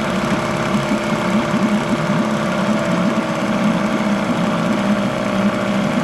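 Johnson 4 hp Seahorse two-stroke twin-cylinder outboard running steadily with its engine cover off, its exhaust churning the water in the test tank.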